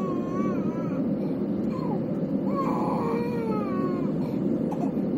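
Steady roar of an Airbus A321's cabin noise from its engines and rushing air, with a young child crying over it in short, high, wavering wails, loudest about two to three seconds in.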